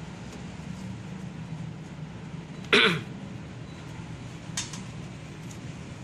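A person gives one short, loud cough or throat-clear about three seconds in, falling in pitch, over a steady low hum. A faint click follows a little later.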